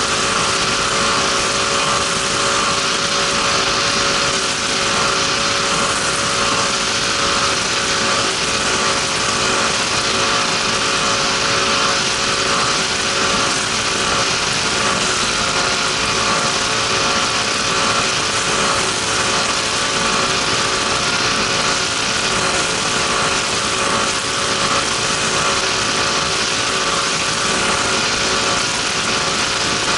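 Race power boat's engine running at a steady pitch while under way, with a dense rush of wind and water noise over it.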